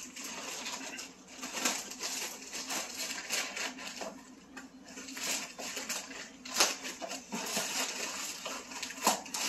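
Plastic poly mailer bag being torn open and rustled by hand: irregular crinkling with a few sharper rips.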